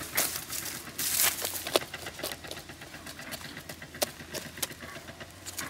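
Loose dry soil scraping and crunching as a hole is dug, with a louder rush of falling dirt about a second in and a few sharp clicks.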